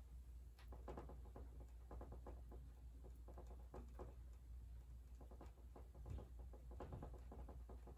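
Faint, irregular soft taps and scrapes of a paintbrush dabbing and stroking paint onto a canvas on an easel, over a low steady hum.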